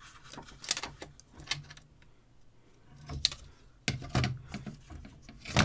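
Clicks and knocks of a work light's plastic housing and parts being handled, with a few irregular taps and a louder knock near the end.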